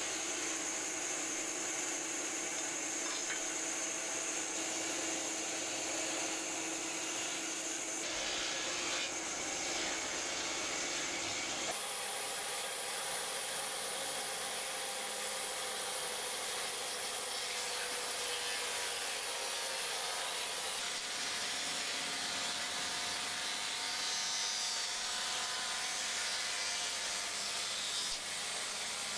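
Wooden handle blank for a meat cleaver being sawn and rubbed by hand: a steady scraping of wood, with a faint high steady whine behind it.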